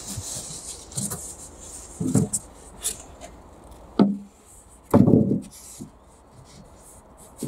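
Styrofoam insulation boards being handled and laid on wooden floor joists: scattered knocks and rubs, with a sharp tap about four seconds in and a heavier thump about a second later.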